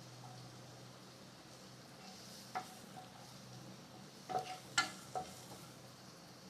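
Boiled sweet potato pieces frying on low flame in a kadai of oil with a faint steady sizzle. A stirring utensil knocks and scrapes against the pan once about two and a half seconds in, then several times between about four and five seconds.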